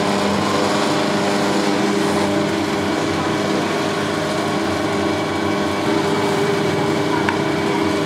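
Steady motor hum of a powered potter's wheel spinning while a clay bowl is shaped and trimmed on it.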